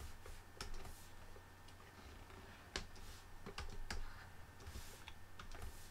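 Scattered light clicks and taps of a stylus on a drawing tablet, coming at irregular intervals over a faint low hum.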